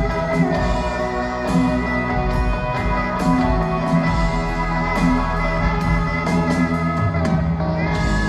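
Live rock band playing an instrumental passage without vocals: pedal steel guitar with held, sliding notes over drums, bass, keyboard and electric guitars.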